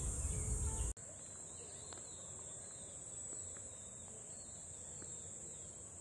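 Steady high-pitched drone of insects in chorus. Low wind rumble on the microphone cuts off abruptly about a second in.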